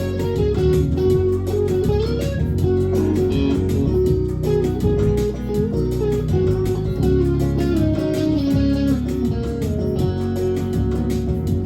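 Instrumental guitar break in a country folk song: a single-note guitar lead plays the melody over strummed rhythm guitar and a steady bass.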